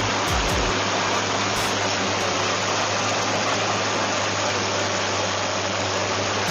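A heavy engine running steadily with a low hum, under a loud, even hiss.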